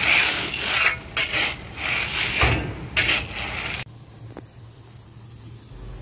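Palm kernels pouring from a loading chute onto a heap in a truck bed: a dense, surging hiss of hard nuts rattling down. It cuts off abruptly a little under 4 s in, leaving a much quieter low background.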